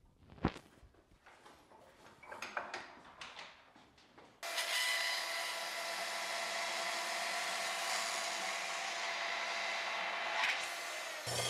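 A sharp metal clank and a few light knocks from a hand-operated sheet-metal brake. About four and a half seconds in, a DeWalt portable band saw starts running steadily, cutting a small sheet-metal bracket, with one brief louder moment near the end.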